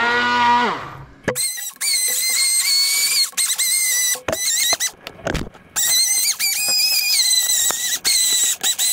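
Hand-held immersion blender puréeing tomatoes in a plastic beaker. The motor runs steadily, then dies away about a second in. After that it runs in short on-off bursts with a high-pitched whine, broken by sharp clicks of the blade against the beaker.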